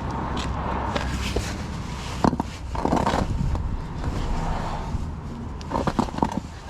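Scattered clinks and scrapes of hand tools being handled as a socket wrench with extension is fitted onto an axle spindle nut, with a few short clatters about two to three seconds in and again near the end, over a steady low background rumble.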